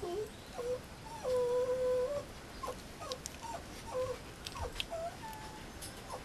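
Mame shiba puppy whining as it mouths a person's fingers: one long held whine about a second in, then a string of short whines.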